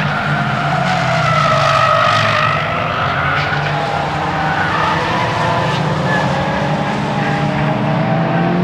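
Nissan S15 Silvia's engine running hard on a circuit lap, with the tyres squealing through the corners.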